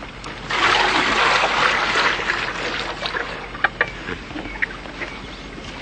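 Splashing water, a rush that starts about half a second in, lasts about two seconds and fades, then a few faint clicks and knocks.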